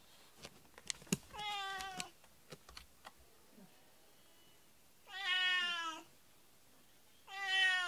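House cat meowing three times, drawn-out 'naa' calls that drop in pitch at the end, asking to be petted. A few light clicks come in the first second or so.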